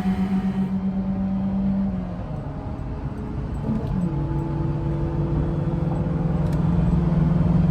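Peugeot car engine under hard acceleration. Its note holds steady, drops about two seconds in as a gear is changed, then from about four seconds climbs steadily and louder as the car pulls through the next gear.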